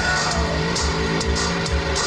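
Gothic rock band playing live through a festival PA, with a fast, steady drum-machine kick about four beats a second, crisp cymbal and snare hits above it, and sustained guitar and synth tones.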